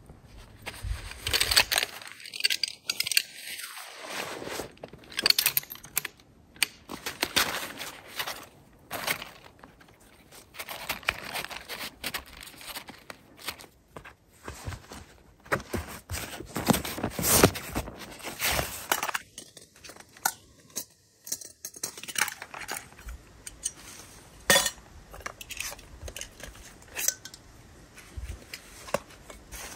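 Camp gear being handled: nylon fabric rustling and crinkling, with small clicks and clinks as the poles of a folding camp chair are fitted together, and boots crunching on snow.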